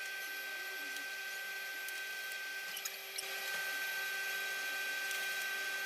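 Steady whine and hiss of a small motor running, with a few faint clicks about three seconds in.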